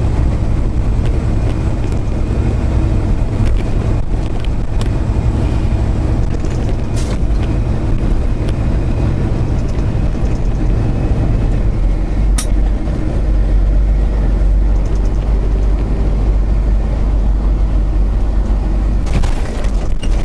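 Semi-truck diesel engine running steadily, heard from inside the cab, with a few sharp clicks. The low rumble deepens about 13 seconds in.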